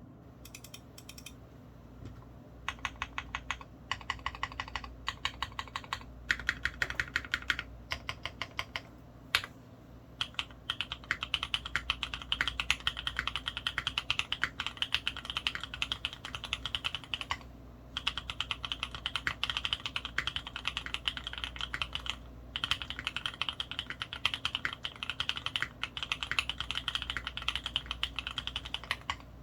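Mode Eighty custom mechanical keyboard being typed on: lubed Kailh Cream linear switches in Cherry bottom housings, on an aluminium plate with ePBT keycaps. Slower, separate keystrokes for about the first ten seconds, then steady fast typing with two short pauses.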